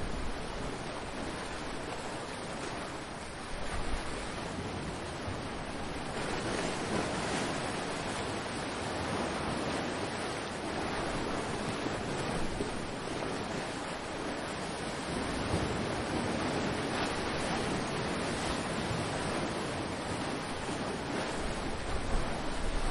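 Ocean waves breaking and washing ashore in a continuous rush that swells and eases. A few low gusts of wind buffet the microphone, one about four seconds in and another near the end.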